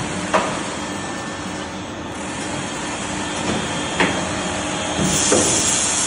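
Automatic CNC disc cold saw running steadily, with sharp clunks about half a second in and again about four seconds in, and a brighter hiss near the end.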